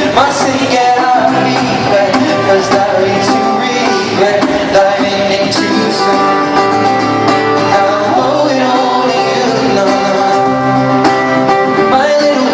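Live performance of a pop song: a man singing a melody over strummed acoustic guitar.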